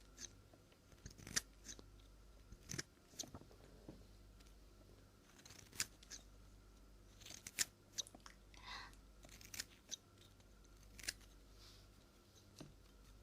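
Scissors snipping close to the microphone in short, irregular snips, as in cutting hair, over a faint low hum.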